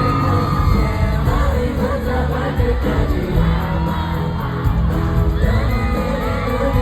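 A live K-pop song playing loud over a backing track with heavy bass, with singing and an audience cheering and whooping along.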